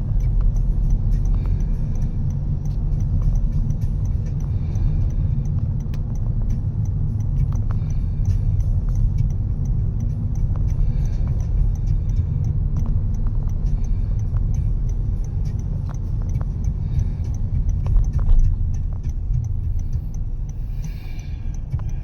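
A steady low rumble of outdoor background noise, with faint short higher sounds coming back every few seconds.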